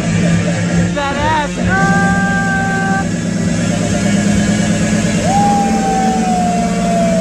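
Loud electronic dance music from a DJ set over a club sound system, with a heavy steady bass. A short warbling note comes about a second in, then a held chord, and near the end a long high note slides slowly down.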